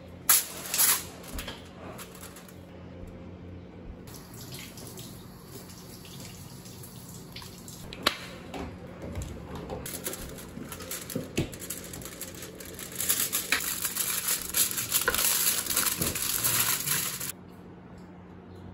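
Aluminium foil crinkling and rustling as it is handled and wrapped around a burrito, with scattered crackles and light taps. The crackling is loudest in a stretch near the end, then stops abruptly, over a faint steady hum.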